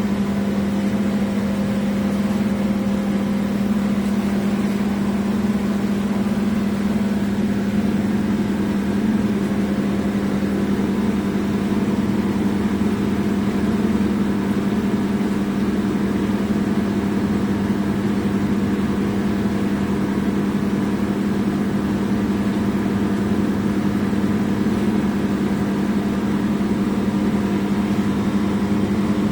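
Motor-driven equipment of a wastewater treatment system running steadily: an even mechanical hum with a strong low tone.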